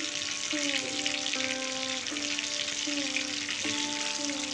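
Bhetki fish pieces sizzling steadily as they fry in hot mustard oil in a kadai. A simple background melody plays over the sizzle.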